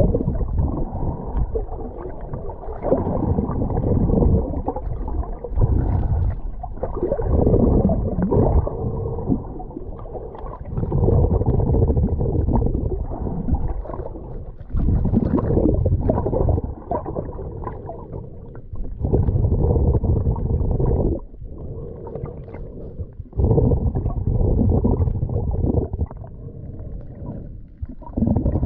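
Muffled rush and slosh of sea water, swelling in irregular surges of one to three seconds.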